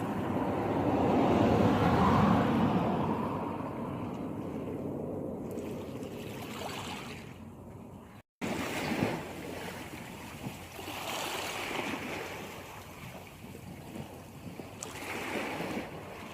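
Sea waves washing in and out, the noise of the surf swelling and fading several times. About eight seconds in, the sound drops out for a split second.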